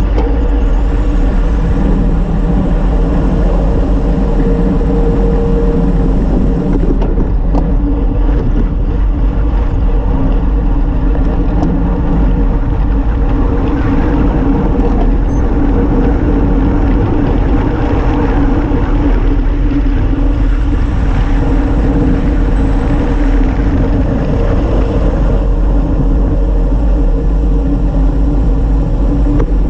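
Steady, loud rush of wind over a handlebar-mounted action camera's microphone on a moving road bicycle.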